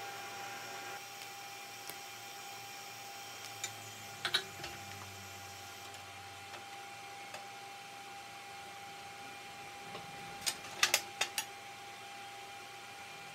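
A TIG welding arc buzzes on the sheet-steel tray and stops about a second in, leaving a steady workshop hum. A couple of sharp clicks and knocks come about four seconds in, and a quick cluster of five or six clicks and knocks comes near the end.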